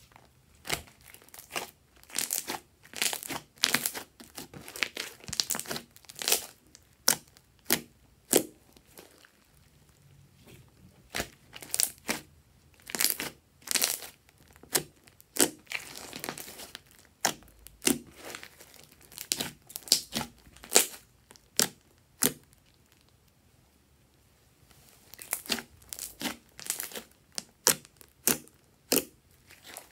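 Thick pink slime being pressed, folded and stretched by hand, giving off irregular sharp pops and crackles in clusters, with a quieter spell a little past two-thirds through.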